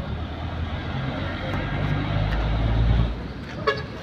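A motor vehicle's engine running with a low hum, growing louder and then dropping away about three seconds in. A short sharp knock follows near the end.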